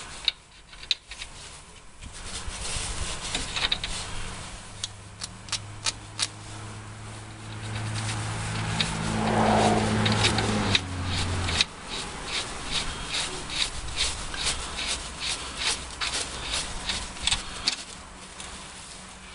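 Axle nut being threaded onto a Jeep Dana 30 front axle shaft and run down, with a run of short clicks, several a second, through the second half. A low steady hum rises for a few seconds around the middle.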